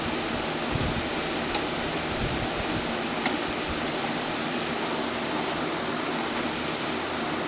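Steady even hiss with a few faint clicks and soft low bumps.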